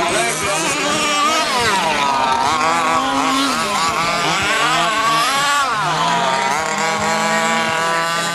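Several large-scale RC off-road buggies' small two-stroke petrol engines revving and easing off as they race, their overlapping pitches sweeping up and down.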